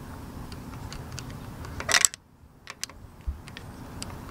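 Scattered light clicks over a low handling rumble, with a louder brief scrape about two seconds in, followed by a short drop to near silence.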